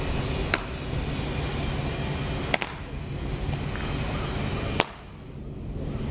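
Ball smacking into baseball gloves three times, about two seconds apart, as two players throw and catch, under a steady low hum.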